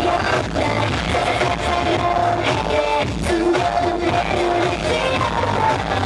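Live K-pop dance-pop song with a female lead vocal over a heavy electronic beat, played loud through a concert PA and heard from the audience.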